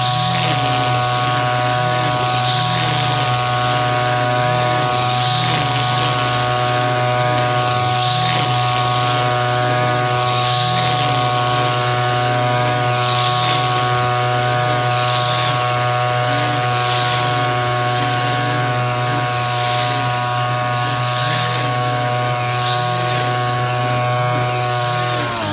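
Brush cutter engine running steadily at high speed, with a swish of the cutting head through the grass about every two and a half seconds as it is swept side to side. Right at the end the engine pitch drops sharply as the revs fall.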